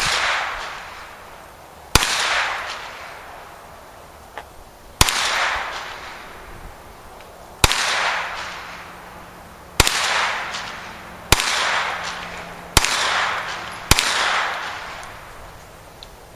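Hi-Point 9mm carbine fired eight times at an unhurried pace, the shots one to three seconds apart. Each shot has a sharp crack and an echo that fades over a second or more.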